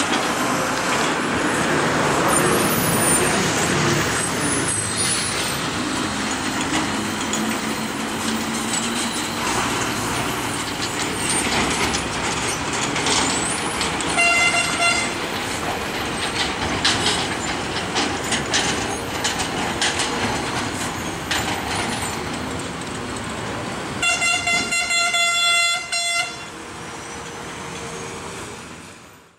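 Heavy truck diesel engines running as lorries manoeuvre through a hairpin bend, with one short horn blast about halfway through and a run of horn toots near the end.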